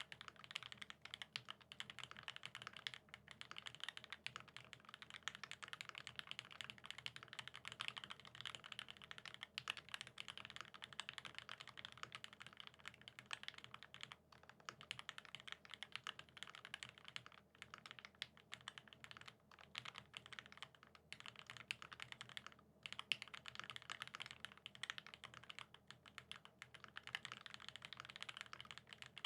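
Continuous fast typing on a Satisfaction75 custom mechanical keyboard with lubed vintage Cherry Top SP Star switches, 80 g springs, a top-mounted brass plate and GMK keycaps: a dense, faint run of keystroke clacks with a few brief gaps.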